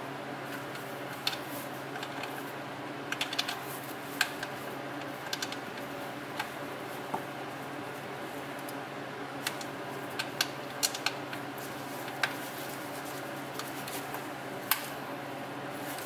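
Small, irregular clicks and taps as a selector shaft seal and its installer tool are handled and pressed into a GM 5L40E automatic transmission case, over a steady low hum.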